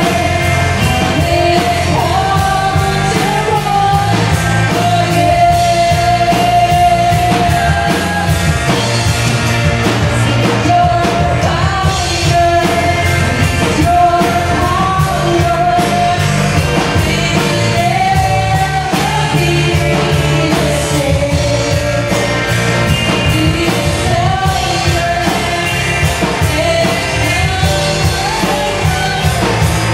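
Live worship band: several voices singing a melody together over electric bass, keyboard and a drum kit keeping a steady beat.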